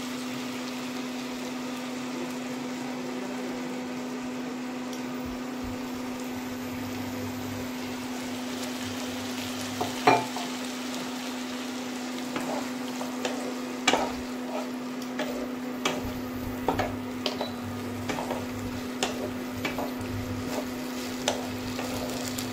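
Vegetables and tomato ketchup sizzling in a non-stick wok over a steady low hum. From about ten seconds in, a wooden spatula stirs and scrapes the pan in a run of short knocks.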